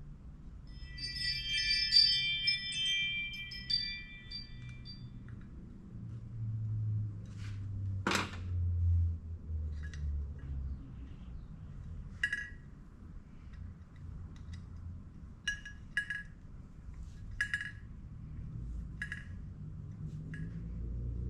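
Small metal parts clinking and ringing as they are handled: a cluster of ringing clinks about a second in, one sharp knock around eight seconds, then a scattered run of light clicks and clinks.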